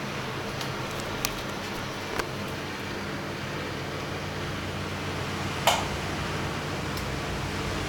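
Bosch WFK2801 front-loading washing machine running its intermittent spin on a 60°C cottons programme: a steady motor and drum hum, with sharp clicks about a second in, about two seconds in, and a louder one about three-quarters through.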